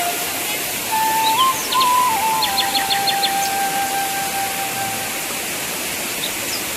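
Steady rush of a waterfall under a slow flute-like melody held on long notes, with quick clusters of short high chirps.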